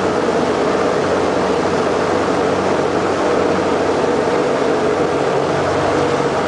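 Motorboat engine running steadily at speed, mixed with the rush of water and wind as the hull planes.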